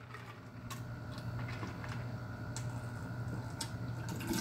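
A man drinking long gulps of iced tea from a large glass jar, with a few faint ticks of ice against the glass.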